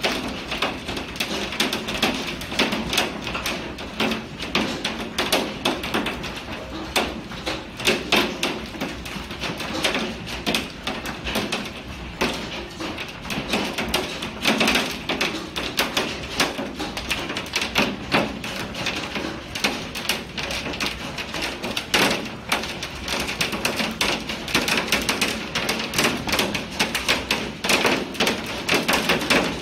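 Hailstones pelting window glass: a dense, irregular patter of hard taps and knocks that never lets up, over the steady hiss of the storm.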